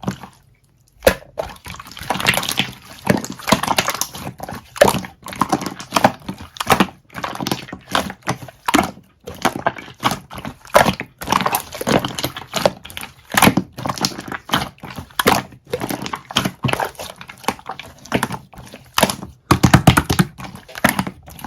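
Soda jelly slime being squished and pressed by hand, making rapid, irregular sticky pops and clicks, with a few heavier squelches near the end.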